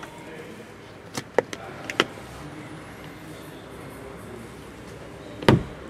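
Several sharp plastic clicks a second or two in, then a single louder thump near the end, from the fold-down vanity mirror panel in a Bentley Mulsanne's rear roof lining being opened and shut by hand.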